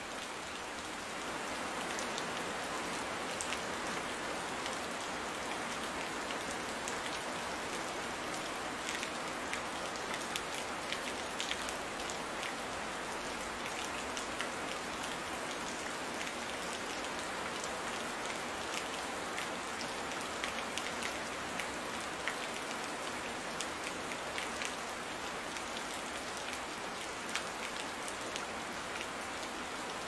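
Steady rain: an even hiss with many small, sharp drop ticks scattered through it, a little louder from about a second in.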